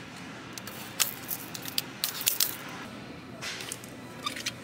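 Plastic product packages being handled on store shelf hooks, with scattered sharp clicks and rustles over steady store background noise.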